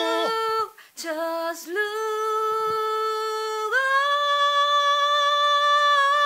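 A woman singing a cappella, holding long sustained vowel notes in a singing exercise: a couple of short notes, then a long held note that steps up to a higher held note about four seconds in.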